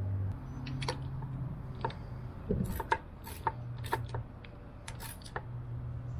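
Socket ratchet wrench clicking in short, irregular bursts as it tightens the bolts holding a Yamaha outboard's lower unit to the engine housing.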